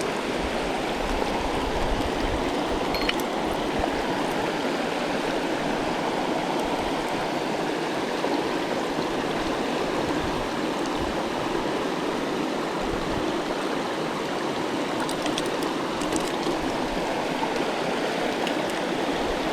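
Mountain creek water rushing steadily, a continuous even wash.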